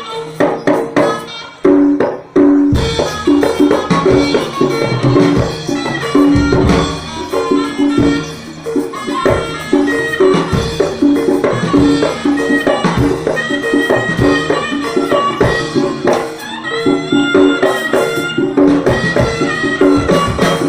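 Live jaranan accompaniment music: a traditional East Javanese percussion ensemble with drums, ringing pitched percussion and a high melody line playing a dense, driving rhythm. Near the start it thins out briefly, then the full ensemble comes back in.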